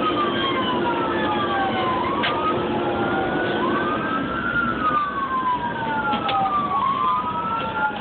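Fire engine's siren wailing, heard from inside the cab over the truck's engine and road noise. The pitch sweeps slowly down and back up every couple of seconds.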